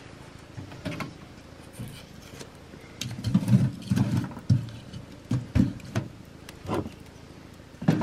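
Kni-Co Trekker steel wood stove's door being opened and split firewood loaded onto the hot coals: scattered clicks and knocks, then a quick run of heavier wooden thumps and clatter against the firebox from about three seconds in.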